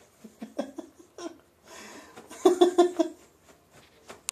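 A person laughing in short, pulsing bursts, hardest about two and a half seconds in, with a soft rustle between the bursts.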